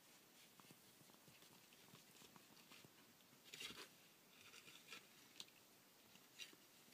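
Faint scratching, clicking and gnawing of a month-old rough collie puppy clawing at and mouthing a small wooden bench, with its paws scrabbling on the pads. The loudest scrape comes about three and a half seconds in.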